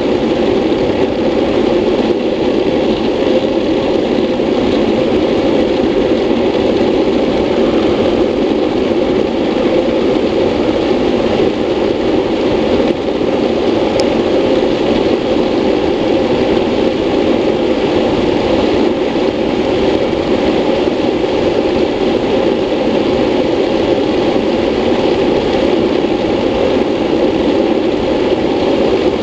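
Steady rushing noise of wind over a helmet-mounted camera mixed with a classic luge board's wheels rolling on asphalt at speed during a downhill run.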